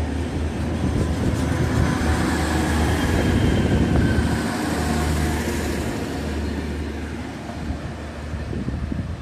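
Two coupled DB Class 612 diesel multiple units pulling out of the station, their underfloor diesel engines running under load as the train accelerates past. The sound fades away from about six seconds in.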